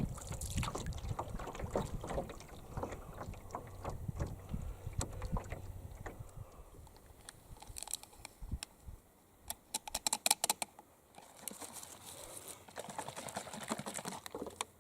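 A canoe being paddled: paddle strokes and water, with low wind noise on the microphone in the first half, then a quick run of sharp clicking knocks about ten seconds in.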